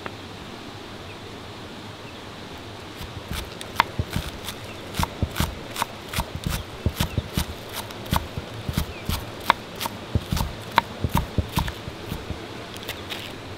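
An uneven run of sharp knocks, about two or three a second, each a dull thud with a sharp click on top. They start a few seconds in and stop near the end.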